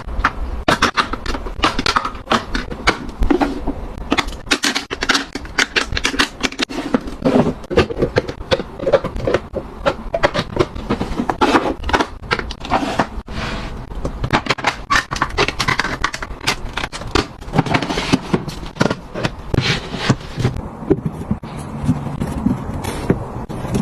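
Many quick, irregular clicks, clacks and scrapes of small items being handled, picked up and set down, with some rustling. The clicking thins out near the end.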